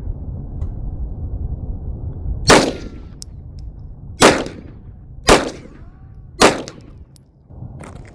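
Four 9mm pistol shots from a Glock 17 Gen 4, fired singly one to two seconds apart, each with a short ringing tail, over a steady low rumble.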